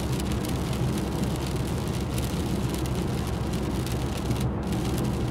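Car driving on a wet motorway in the rain: steady hiss of tyre spray and rain over a low road rumble, with a brief drop in the hiss about four and a half seconds in.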